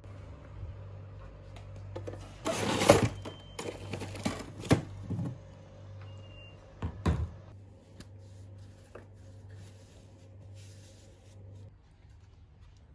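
Hard plastic clattering and knocking as a white ridged plastic block is handled: a run of loud knocks, then a single thud a few seconds later. A steady low hum lies underneath and stops near the end.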